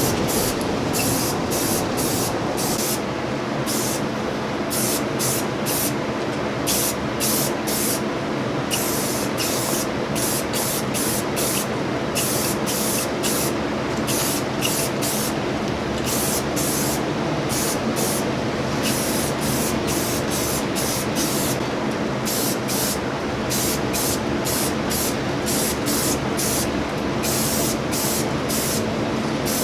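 Paint being sprayed onto a mini bike frame, hissing in many short bursts of irregular length with brief gaps between them, over a steady low hum.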